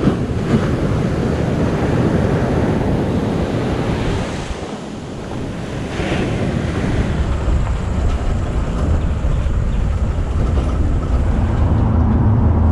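Ocean surf breaking and washing up a sandy beach, with wind buffeting the microphone. Near the end a vehicle's engine hum comes in.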